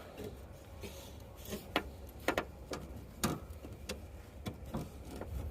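Irregular clicks and knocks from a car's hood release being worked by hand. The release mechanism is broken and will not open the hood.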